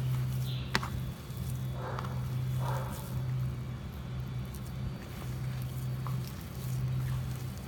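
Hands squeezing and kneading a soft mash of bread and boiled sweet potato on a plastic plate, with a few soft squishes about two and three seconds in, working it until it is sticky. Under it a steady low hum comes and goes.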